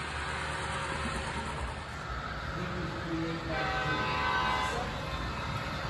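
An HO scale model diesel locomotive's onboard sound sounds its horn once, for about a second, starting about three and a half seconds in. Underneath is the steady rumble of model trains running on the track.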